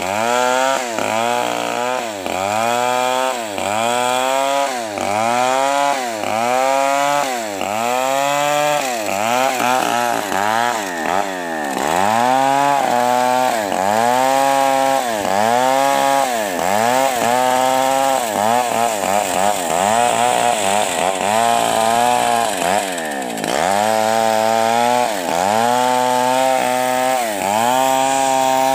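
Stihl 070 large two-stroke chainsaw ripping lengthwise through a trembesi log under load. The engine note dips and climbs back about once a second throughout.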